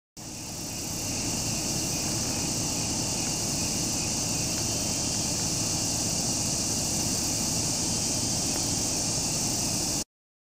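Outdoor ambience: a steady high-pitched insect chorus, like crickets, over a low rumble of wind on the microphone. It starts and cuts off suddenly.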